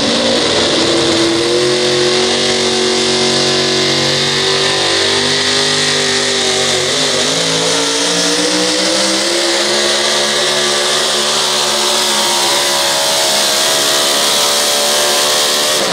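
A four-wheel-drive pulling truck's engine run at full throttle through open vertical exhaust stacks during a sled pull. The revs climb in the first second, dip briefly about seven seconds in, then climb again and hold steady at high revs.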